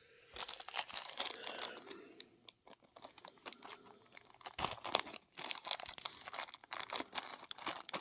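Plastic packaging crackling and rustling in irregular handling noise as a set of small diecast model accessories is unpacked.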